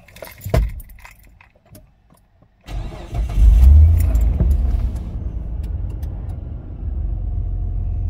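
A short rattle of keys at the ignition. Then the Mitsubishi Pajero's 3.8-litre V6 cranks and catches, flares up, and settles into a steady idle now that a new mass airflow sensor is fitted.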